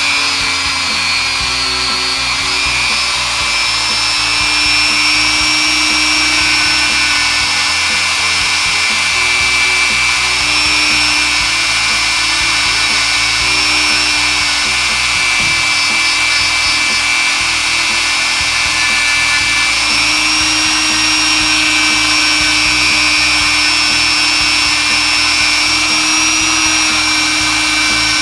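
Dremel rotary tool on a flexible shaft spinning a felt polishing bob against the steel feed ramp of a pistol barrel, buffing off the ramp's coating with polishing rouge. It gives a steady high motor whine whose pitch dips and rises slightly a few times.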